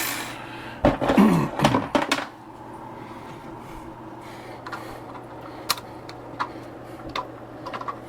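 Cutting and handling a 3D-printed plastic part: a loud clatter of knocks and scraping for about two seconds, then a few sparse sharp clicks over a steady low hum.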